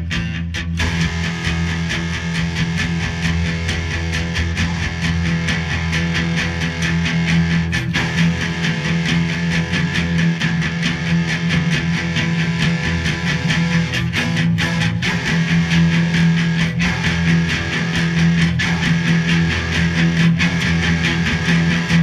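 Music led by guitar, playing steadily.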